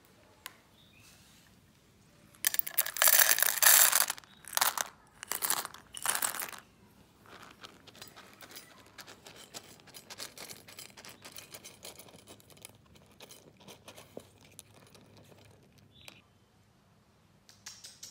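Cat food being served into a stainless steel bowl, several loud noisy bursts over about four seconds, then a cat eating from the bowl with faint, quick clicks of chewing.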